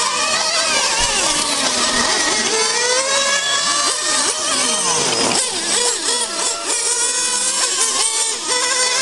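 Several radio-controlled model racing cars running together, their high-pitched motors rising and falling in pitch as they accelerate down the straights and slow for corners.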